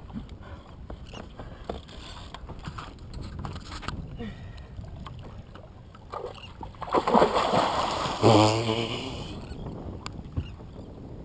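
Hooked blacktip shark thrashing at the surface alongside a small boat: a burst of splashing about seven seconds in, lasting around two seconds, with a short wordless cry from a person over it. Otherwise water moves against the hull under light wind.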